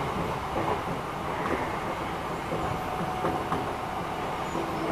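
Enshu Railway 2000-series electric train running on the line, heard from just behind the driver's cab: a steady rumble of wheels on rail, with a few faint clicks.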